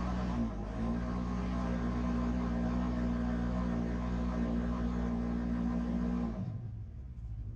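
Polaris RZR 900 side-by-side's twin-cylinder engine pulling steadily under load while climbing a sand dune, with a brief dip in the engine note about half a second in. Near the end the engine sound drops away suddenly, leaving mostly wind noise.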